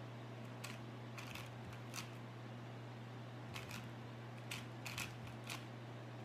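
Plastic 4x4 speed cube layers being turned, giving about ten sharp clacks in two quick groups, the second starting about three and a half seconds in. A steady low hum runs underneath.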